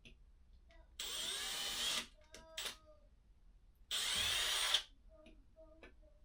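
Milwaukee cordless drill running in two short bursts of about a second each, drilling the hole for a wall bracket's bottom screw.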